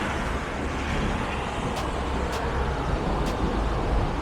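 Wind buffeting the microphone outdoors in a snowstorm: a steady, rumbling noise. Three faint crisp ticks fall in the middle.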